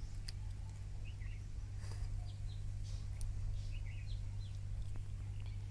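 Birds chirping in short scattered calls over a steady low hum.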